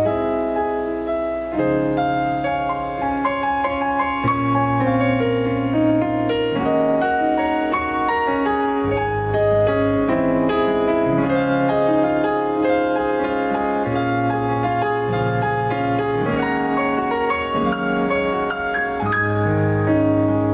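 Piano playing an instrumental passage of a slow song: held chords over a bass note that changes every couple of seconds, with no singing yet.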